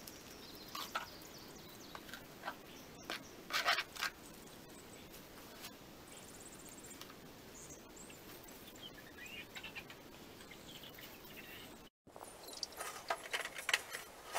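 A plastic pooper scooper scraping and sifting through sand in a plastic tub, in short scratchy bursts over the first few seconds. Near the end there is a cluster of quick scratchy clicks, with faint bird chirps in the background.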